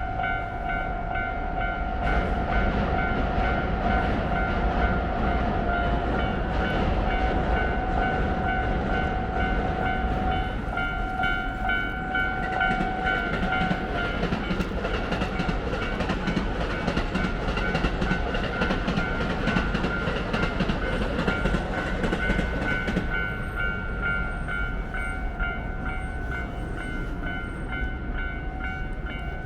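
Japanese level-crossing warning bell ringing in a fast, steady repeating tone, over the rumble and clack of a Hankyu Kyoto Line electric train passing over the crossing.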